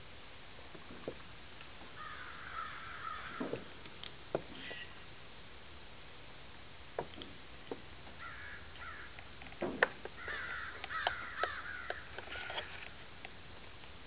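Crow cawing outside in several bursts of harsh calls, about two seconds in, then again from about eight to thirteen seconds in, over a steady high insect hiss. A few sharp clicks and taps are scattered between the calls, the loudest near ten seconds in.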